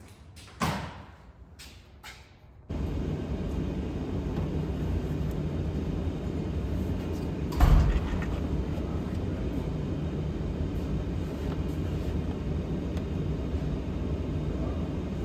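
A knock about half a second in, then the F-150's climate-control blower switches on about three seconds in and blows steadily through the newly connected center-console air duct. A single thump about halfway through.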